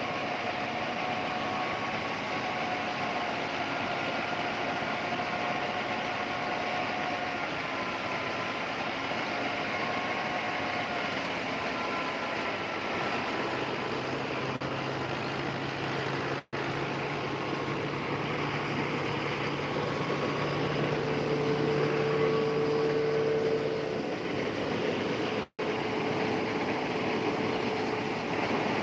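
Tractor-driven Batala paddy thresher running steadily at work, a continuous mechanical din from the drum and belt drive. A lower engine hum comes in about halfway through and grows a little louder near the end, and the sound cuts out for an instant twice.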